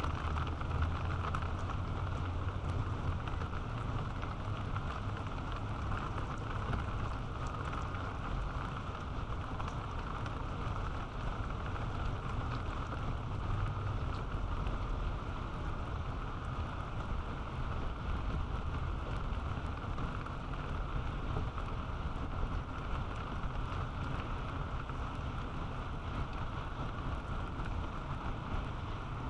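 Steady rain falling on and around a peregrine falcon nest box, with a low rumble underneath.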